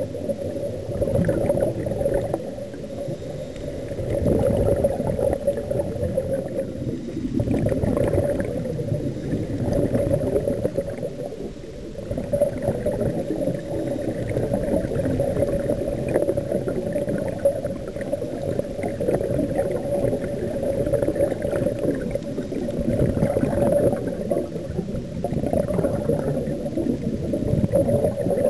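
Underwater recording: muffled, rumbling and gurgling water noise around the camera, with a steady low hum throughout.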